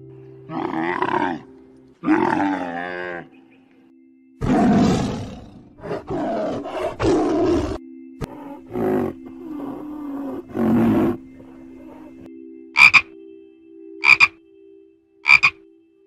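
Tigers growling and roaring in a run of loud calls, followed near the end by three short sharp croaks about a second apart from a toad, over a faint steady hum.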